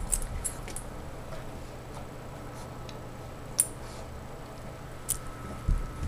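A Lhasa Apso and a Basset Hound scuffling in play: scattered sharp clicks, the loudest about three and a half seconds in, and a soft thump near the end. No growls or barks.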